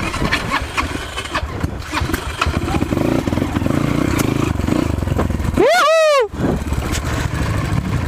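Off-road motorcycle engines running, with scattered clicks and knocks. About six seconds in, a loud call or shout rises and then falls in pitch, lasting under a second.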